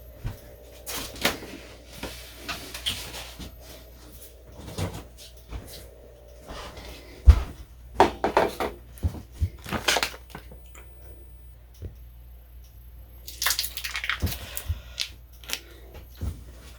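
Irregular knocks, clatters and rustles of things being handled in a kitchen, in two busier clusters, over a faint steady hum.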